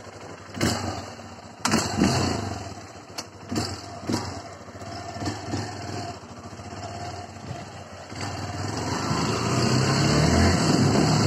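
Honda CRF150L's single-cylinder four-stroke engine idling, with several sharp knocks in the first few seconds. From about eight seconds in it grows steadily louder as the bike pulls away and rides off.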